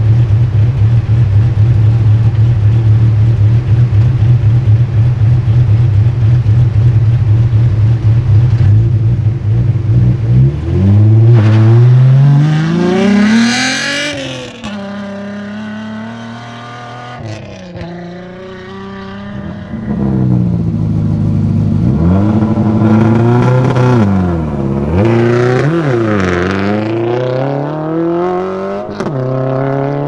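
Rally car engine idling steadily at the stage start line, then launching about ten seconds in. It revs hard and climbs in pitch through a series of gear changes as the car accelerates away down the gravel stage.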